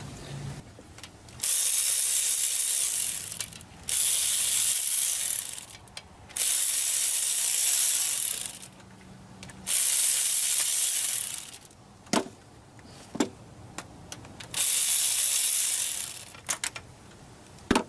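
A ratchet wrench turning bolts in five bursts of about two seconds each, followed by a few short metal knocks.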